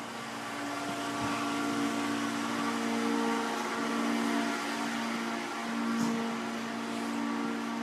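A steady machine hum with a few held tones over a rushing noise, like a motor or pump running.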